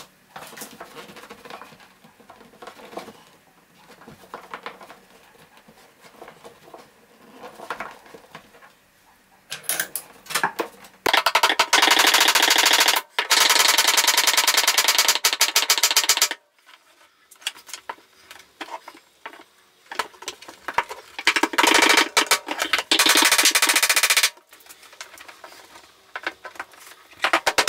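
Hammer tapping rapidly on a cable clip at the wall, in bursts of a few seconds each: the first about ten seconds in, another around twenty-one seconds, and a third starting near the end. Quieter handling and rustling in between.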